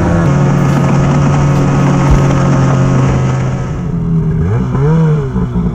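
Snowmobile engine running steadily at trail speed, heard from the rider's seat. About four seconds in it gives way to a quieter idling engine with one short rev that rises and falls.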